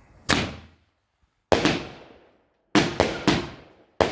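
Fireworks going off in a series of sharp bangs, each fading away with a short echo: one a little after the start, another about a second later, then three in quick succession and one more near the end.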